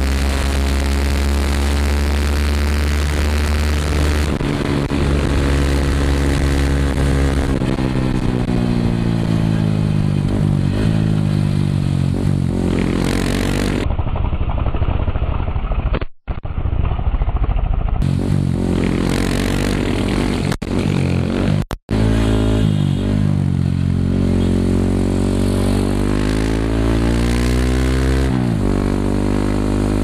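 Yamaha WR155R's single-cylinder four-stroke engine running through a Norifumi Rocket 4 aftermarket exhaust while riding, its pitch repeatedly climbing and falling with the throttle. The sound drops out abruptly for a moment a few times where the recording cuts.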